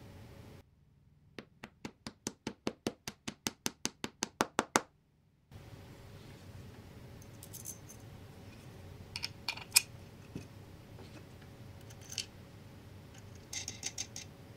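A run of about seventeen sharp clicks, getting louder and closer together, starting about a second in. Later come a few light metallic clinks from a steel bolt and washers being handled on a wooden workbench, the sharpest about ten seconds in.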